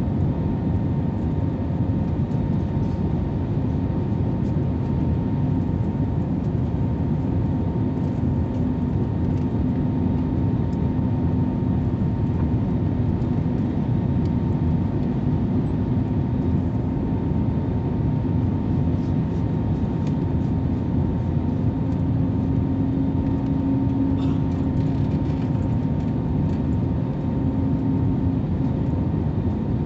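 Cabin noise inside an Airbus A321neo on approach with flaps extended: a steady drone of its CFM LEAP-1A engines and the airflow, with a steady low hum running through it that grows a little stronger about three-quarters of the way in.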